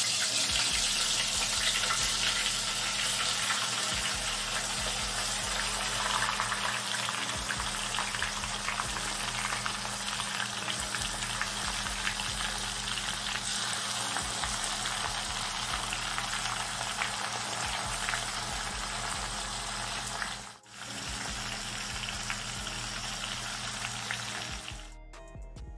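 Shrimp deep-frying in hot oil in a stainless steel saucepan: a steady, dense sizzle full of small crackles as the oil bubbles hard around them. It breaks off for a moment about 20 seconds in and stops shortly before the end.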